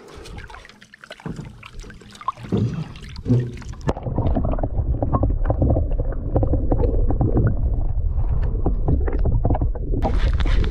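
Water sloshing and splashing as a peacock bass is let go into the river. About four seconds in, it turns to a louder, dull, muffled rush of water, which clears again near the end.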